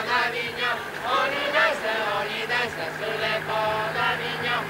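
Voices chanting a tune together, with a steady low hum underneath.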